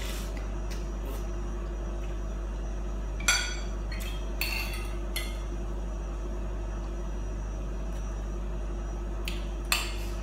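Metal spoon clinking and scraping against a ceramic soup bowl and plate while eating, a handful of scattered clinks with the loudest about three seconds in and just before the end, over a steady low hum.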